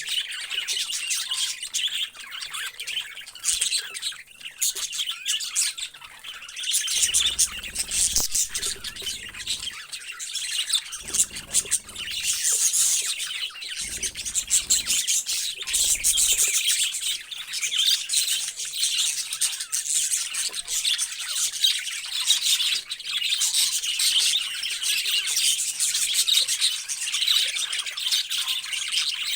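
Many parrots chirping and chattering at once, a dense, continuous flock chatter of high calls and squawks.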